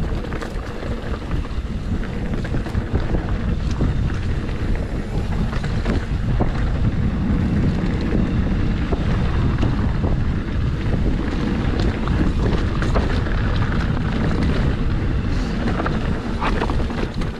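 Wind buffeting the camera microphone over the steady rumble of mountain bike tyres rolling down a rocky dirt trail, with scattered clicks and rattles from the bike.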